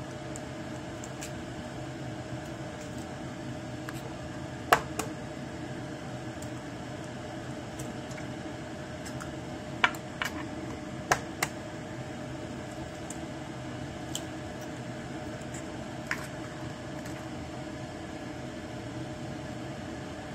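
Eggs being cracked against a stainless steel bowl: three pairs of sharp taps, with a couple of fainter clicks later, over a steady kitchen hum.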